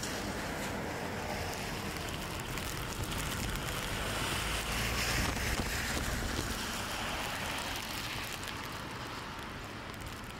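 Gusting wind and driving rain rushing through the leaves of a tree. The rush swells to a peak about halfway and eases off, with a low rumble of wind on the microphone.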